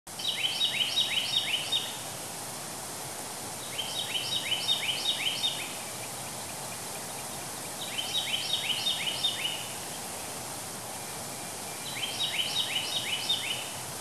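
A songbird singing a short phrase of about six quick, descending notes, four times at about four-second intervals, over the steady rush of water flowing down a cascading forest waterfall.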